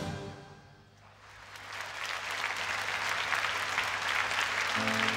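A concert audience applauding: the last of the music rings away in the hall in the first second, then the clapping swells and holds steady.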